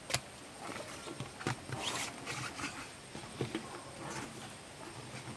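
Rubber inner tube being pulled and pressed into a tyre by hand, rubbing and scraping against the tyre, with a sharp click just after the start.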